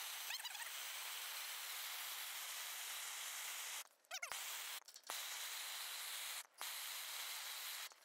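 Handheld gas torch flame hissing steadily against the padlock, cut off briefly a few times with short chirping glides as it comes back.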